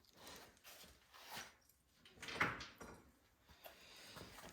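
Faint handling sounds of parts on a snowblower engine being taken apart at the carburetor: scattered light clicks and scrapes, with a slightly louder clunk about halfway through.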